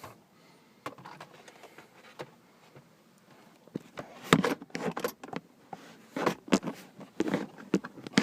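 Handling sounds in a car interior: a string of short clicks, knocks and rustles, sparse at first and coming thick and fast from about halfway through, as plastic trim and parts are moved by hand.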